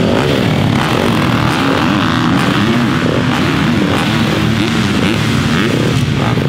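Motocross bike engines revving, their pitch rising and falling over and over.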